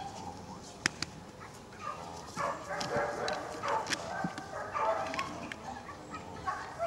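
A bull-type dog giving short barks and yelps as it jumps at and bites a helper's padded bite suit, with a couple of sharp knocks about a second in.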